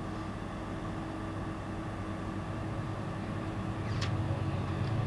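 A steady low hum with a few faint held tones. A low droning tone swells in about four seconds in, the start of an eerie music cue, with a faint click at about the same moment.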